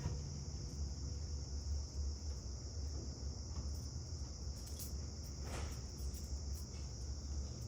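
Steady high-pitched chorus of insects, with a low rumble underneath and a brief rustle or knock about five and a half seconds in.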